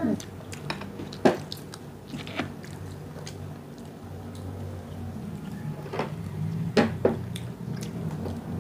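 People chewing and biting into crispy cheese-powdered fried chicken, with a few sharp crunches spread through, over a low steady hum.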